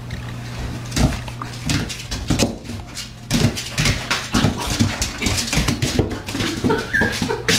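Puppy yapping and whimpering in short sounds, coming several a second from about three seconds in.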